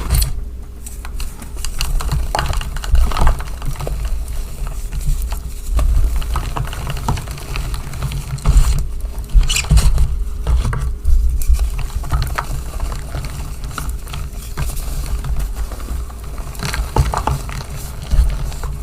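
Reformed gym chalk being squeezed and crumbled close to the microphone: irregular crunching and squeaking with dull low thumps.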